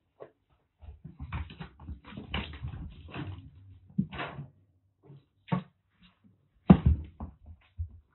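Two kittens wrestling on the floor: the scuffle of paws on carpet and wood with irregular thumps and bumps of their bodies, busiest in the first half. The loudest single thump comes about two-thirds of the way through.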